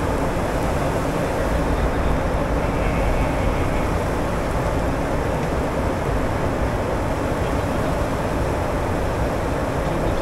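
Steady cockpit noise of a Gulfstream G150 business jet: a constant, even rumble and hiss from the engines and airframe, with no change in level.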